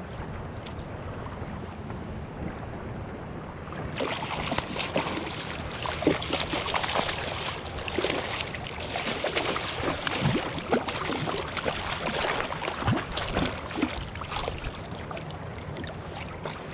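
A hooked bluefish thrashing and splashing at the water's surface beside a kayak, starting about four seconds in as a burst of irregular splashes and slapping that dies down near the end. Before that, a steady hiss of wind and water.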